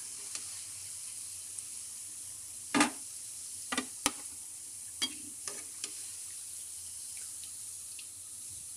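Paneer malai koftas deep-frying in hot oil in a metal kadhai, a steady sizzle. A handful of sharp clinks from the metal slotted spoon against the pan come in the middle, as the golden-brown koftas are lifted out.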